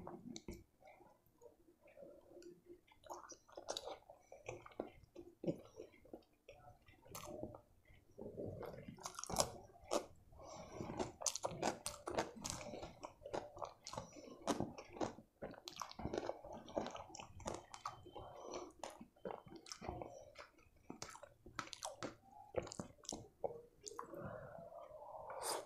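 Close-miked chewing and wet mouth clicks of a person eating spiced rice and boiled egg by hand. The clicks are sparse at first and come thick and fast from about eight seconds in.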